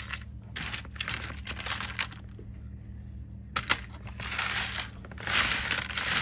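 Pieces of scrap gold jewelry and coins clinking and rattling against each other as they are handled. The clinks are scattered, pause briefly past the middle, and grow denser near the end.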